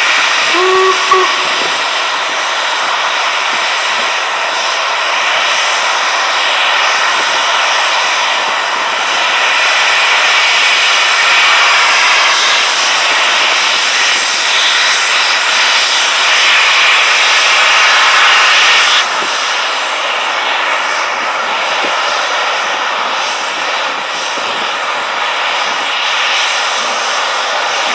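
LMS Princess Coronation Class steam locomotive No. 6233 Duchess of Sutherland pulling away, with a loud, steady hiss of steam from its open cylinder drain cocks and a short whistle toot about a second in. The hiss drops suddenly about 19 seconds in as the drain cocks are shut.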